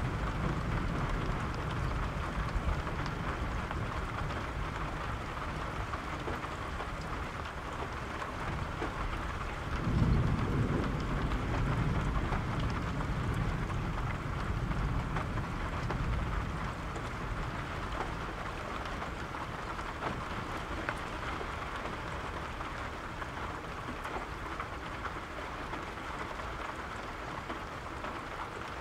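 Steady rain with gentle, low rolling thunder: a rumble fading at the start, and another roll that swells about a third of the way in and dies away slowly.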